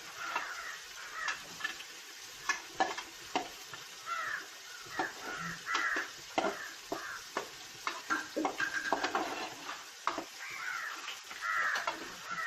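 A spoon stirring fried chicken pieces into a thick cream gravy in a pan: irregular clicks and scrapes against the pan over a light sizzle, with short arching bird calls repeating throughout.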